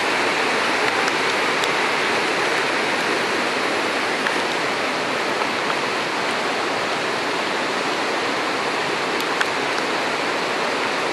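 Steady rushing noise that stays even throughout, with a few faint ticks.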